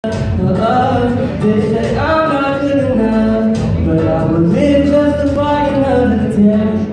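A man singing a song into a microphone, sliding between notes and holding some of them for about a second.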